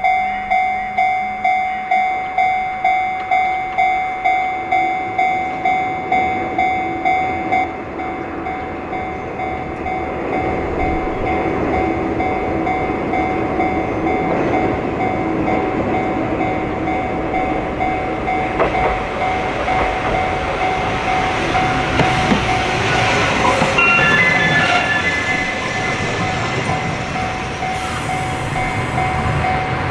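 Level-crossing warning bell clanging about twice a second. From about eight seconds in, a Tosaden streetcar passes through the crossing with a growing rumble of wheels on rail that covers the bell. Brief high tones sound about three quarters of the way through.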